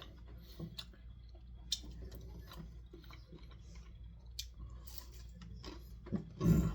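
Close-up chewing of a crispy fried chicken tender: irregular wet mouth clicks and crunches over a low steady room hum, with one louder breathy mouth sound near the end.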